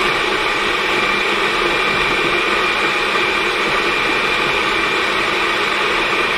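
Countertop blender running steadily at full speed, puréeing a thick batch of cooked squash soup with onion, then switched off right at the end.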